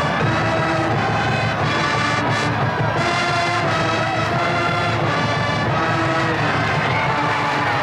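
Brass band playing a tune in held notes, with drums underneath.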